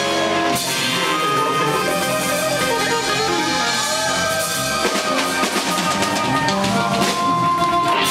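Live electric blues band playing: electric guitar and electric bass over a drum kit, with harmonica near the end.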